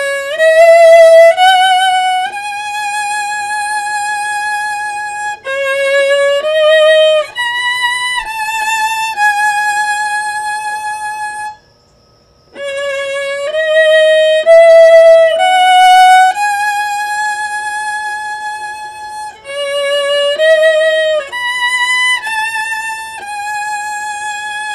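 Solo viola played with the bow: a slow melody of long held notes with vibrato. It breaks off in a short pause about halfway, and then the phrase begins again.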